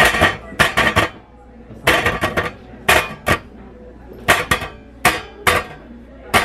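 Hands drumming on a wooden tabletop and the curved metal sheet lying on it: sharp knocks, mostly in pairs about once a second.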